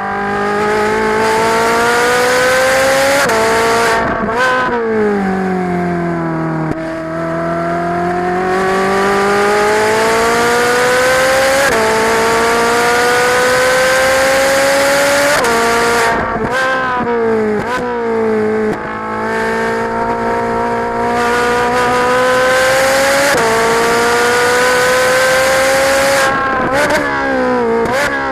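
Ferrari 458 Italia's naturally aspirated V8 under hard track driving, climbing in pitch through the gears with quick upshifts. Three times the revs fall away under braking with a flurry of rev-matched blips on the downshifts.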